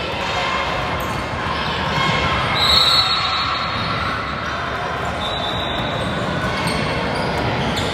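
Basketball dribbling and bouncing on a gym floor during a youth game, over a steady din of voices echoing in a large hall. Two short high-pitched tones sound about a third and two-thirds of the way through.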